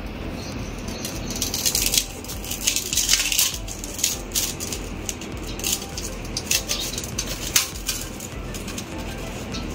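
A kitchen knife cutting into the rind of a watermelon: irregular short scraping and clicking strokes as the blade is worked round the top of the melon.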